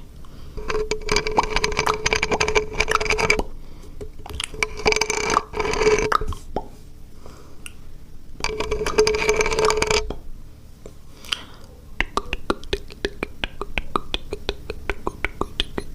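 Close-miked ASMR mouth sounds: a voiced sound held at one steady pitch, three times for one to three seconds each. After that, from about two-thirds of the way in, comes a fast run of sharp, wet mouth clicks.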